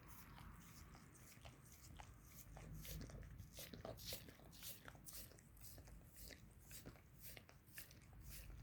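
A mixed-breed dog licking a person's foot close to the microphone: a faint, irregular run of quick wet smacks, several a second.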